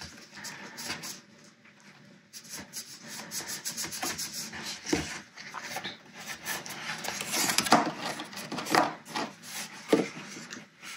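Cardstock paper box being handled and turned over on a work surface: paper rubbing and sliding, loudest a little past halfway, with a couple of knocks.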